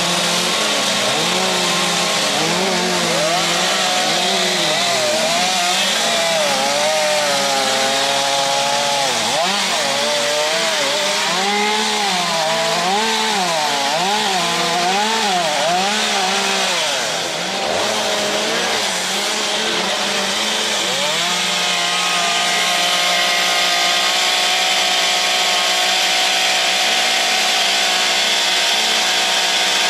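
Two-stroke chainsaws cutting into wood, their engine pitch rising and falling as the throttle is worked while carving. The running turns steadier about two-thirds of the way through.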